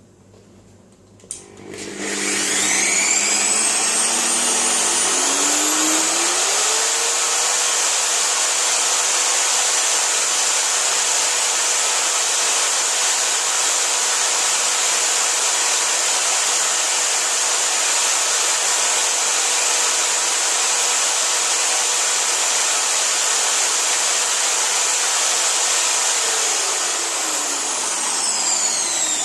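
Electric drill switched on with a click, its motor whine rising in pitch for about five seconds as it speeds up to about 2800 rpm, then running steadily at speed before falling in pitch as it winds down near the end.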